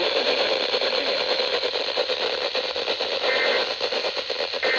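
Radio static: a steady crackling hiss from a weather radio receiver with no clear signal, with two short faint tones late on.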